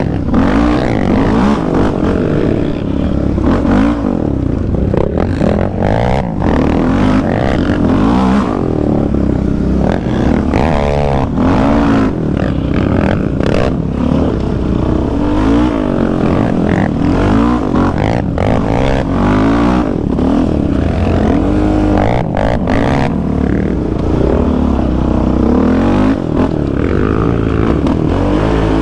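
Yamaha Raptor 700's single-cylinder engine revving hard and backing off over and over, its pitch sweeping up and down as the quad is ridden fast on dirt trails, with scattered clatter from the machine over the bumps.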